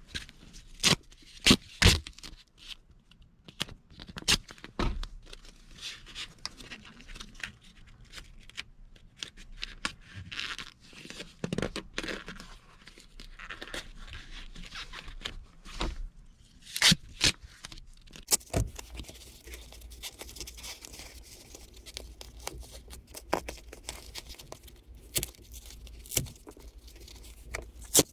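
Pipe insulation and tape being worked around a condensate drain line: tearing, scraping and crinkling, with scattered sharp clicks and knocks.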